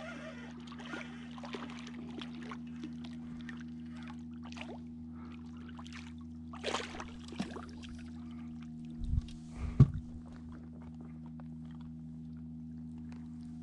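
A hooked channel catfish splashing and thrashing at the water's surface beside the boat about six to seven seconds in, followed near ten seconds in by a couple of heavy thumps, the loudest sounds, as the fish is landed. A steady low hum runs underneath.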